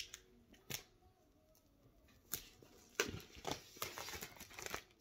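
Plastic shrink wrap on a product box being picked at and peeled by hand: a few faint scattered clicks, then from about three seconds in a run of crinkling and rustling.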